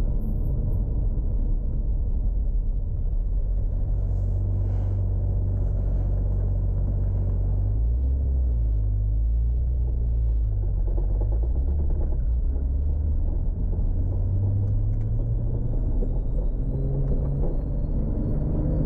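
Tuned Toyota Supra MK4's turbocharged 2JZ straight-six running at low revs with a steady low rumble, the engine note rising near the end as the car accelerates.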